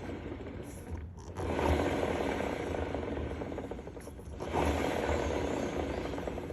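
Honda PCX125 rear wheel turning with a scraping mechanical noise that swells and fades twice: the abnormal rear-wheel noise whose cause is being sought.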